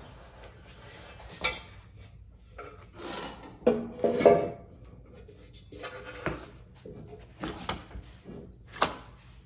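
NordicTrack Commercial 1750 treadmill's metal upright being handled and fitted onto the base frame: irregular knocks, clanks and scraping of metal on metal, the loudest about four seconds in.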